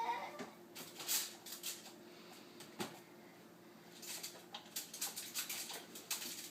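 Light rustling, clicking and tapping of a small child handling food containers in an open refrigerator, in short scattered bursts, over a faint steady hum.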